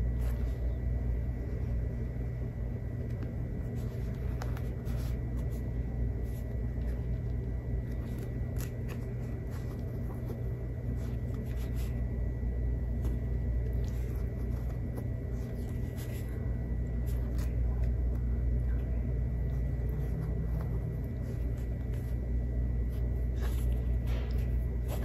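Steady low room hum, with faint soft clicks and rustles of pinked-edge cotton charm squares being leafed through one by one.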